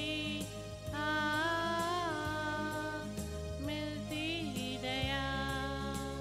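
A woman singing a solo hymn into a microphone over instrumental accompaniment, holding long notes that bend in pitch.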